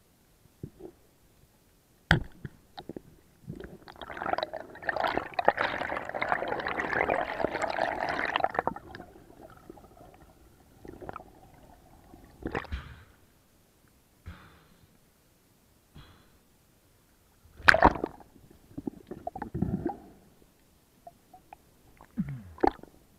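Underwater water noise on a diver's camera during an ascent. A sharp knock comes first, then several seconds of bubbling and gurgling water, then scattered knocks and splashy bursts as the camera nears the surface, the loudest a little past halfway.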